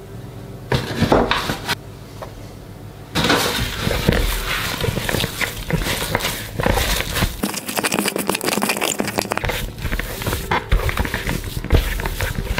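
A gloved hand kneading potato dough of mashed potato, egg and flour in a bowl. A dense run of squishing and crackling starts about three seconds in and goes on steadily, after a few short handling sounds about a second in.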